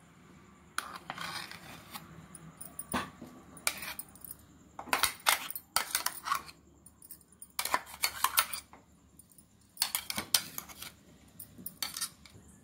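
A steel spoon scraping and clinking against a stainless steel mixer-grinder jar and a steel bowl as thick ground chutney is scooped out. The sounds come in short clusters every second or two.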